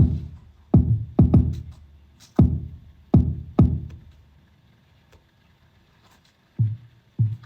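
Programmed Afrobeat percussion loop of a kick and a deep, conga-like percussion sample, playing a syncopated pattern of decaying hits. It drops out about four and a half seconds in and comes back softer near the end.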